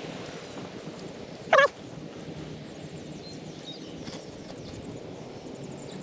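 A single short, loud quack from a Pacific black duck about a second and a half in, over steady outdoor background noise.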